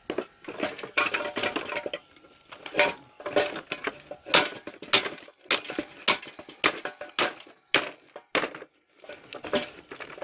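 Repeated hammer blows on a cast aluminium street light, knocking off its plastic parts, with cracking and clinking. The blows come thick and fast at first, then as separate strikes about two a second.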